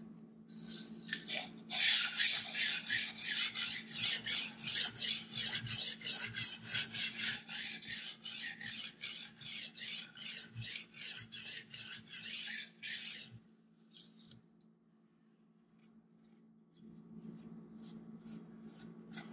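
Sharpening stone on a guided sharpening system's arm stroked back and forth along a clamped chef's knife edge, a rasping scrape at about two to three strokes a second, grinding the second side of the bevel to raise a burr. The strokes stop about 13 seconds in.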